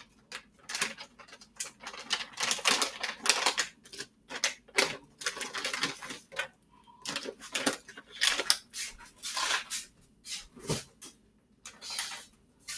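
Plastic food packaging crinkling and rustling in irregular bursts, with small clicks and knocks.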